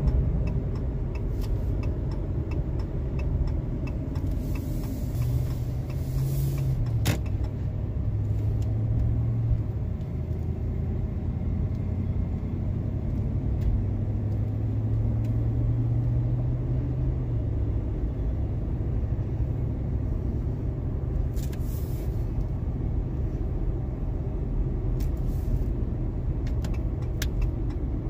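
Truck driving along, a steady low engine and road rumble heard from inside the cab, with the engine note shifting in pitch a couple of times and a single click about seven seconds in.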